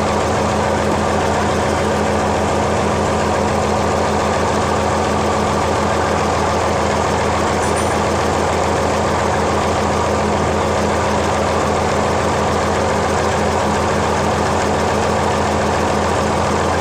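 Mitsubishi inline SOHC engine idling steadily.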